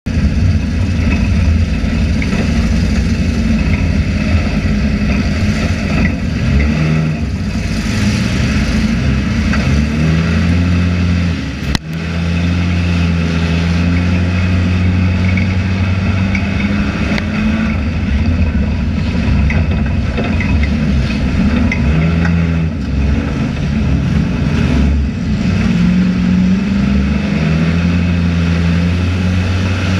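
Enduro race car's engine heard from inside the stripped cockpit, running loud under throttle, its pitch rising and falling several times as the driver gets on and off the gas. There is one brief drop-out about twelve seconds in.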